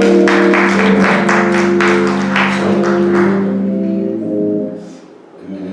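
Short burst of instrumental music: sustained held chords with sharp percussive hits over them, dying away about five seconds in.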